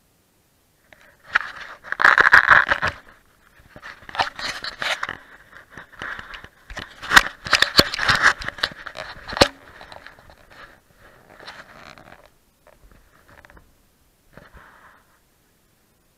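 Dry grass and vegetation scraping and rustling close against a head-mounted camera as a rescuer on a rope moves down a grassy cliff edge, in irregular bursts with a few sharp clicks, loudest about two seconds in and again around seven to nine seconds in, fading out near the end.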